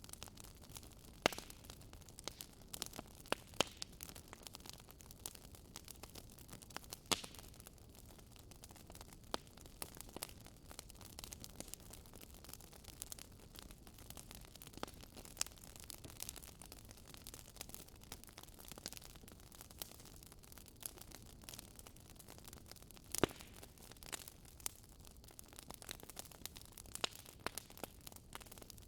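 Wood fire crackling in a fireplace: irregular sharp pops and snaps over a soft steady hiss, with a few louder pops about a second in, around seven seconds in and near twenty-three seconds.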